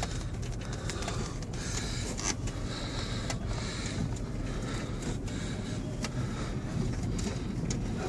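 Pickup truck driving slowly over a rough dirt track, heard from inside the cab: a steady low rumble of engine and tyres, with scattered rattles and knocks as the truck goes over bumps.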